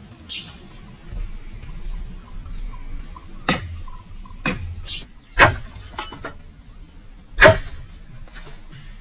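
A series of sharp knocks, irregularly spaced, starting about three and a half seconds in. The two loudest come near the middle and near the end. A bird chirps briefly just after the start.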